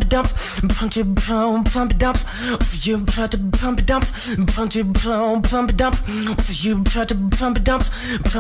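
A beatboxer performing with his mouth into a close microphone: a fast, steady rhythm of mouth-made kick and snare hits mixed with hummed pitched tones, with warbling, wavering vocal effects about a second in and again around five seconds.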